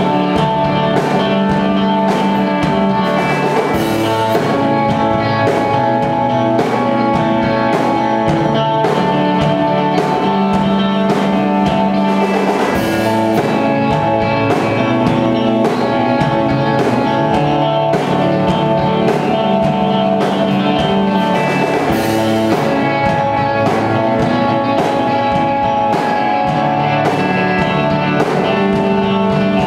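Live instrumental rock band playing: electric guitar with long held notes over a drum kit, with a few cymbal crashes.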